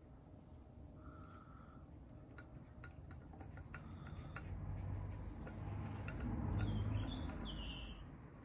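Birds chirping now and then, with faint light clicks of small metal parts being handled. A low rumble swells in the second half, loudest about two-thirds of the way through, then fades.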